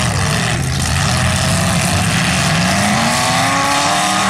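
Several demolition derby cars' engines revving hard at once, one climbing steadily in pitch from about two seconds in.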